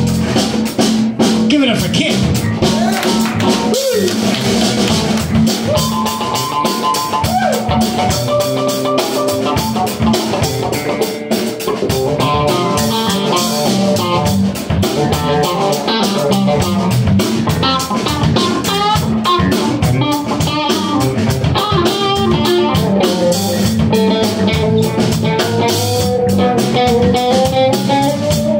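Live band playing an instrumental passage: electric guitar playing lead lines that bend and slide in pitch, over electric bass and a Gretsch drum kit.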